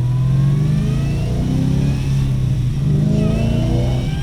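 Supercharged LSA V8 of an HSV VF Commodore accelerating hard, with the supercharger's high whine climbing in pitch alongside the engine. The pitch rises, drops back about two seconds in as it changes up a gear, then rises again and drops once more near the end.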